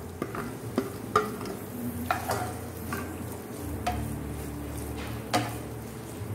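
Wooden spatula stirring freshly added chopped onions and a green chilli in hot oil in a non-stick pan: irregular scrapes and taps against the pan over a light sizzle, with a low steady hum underneath.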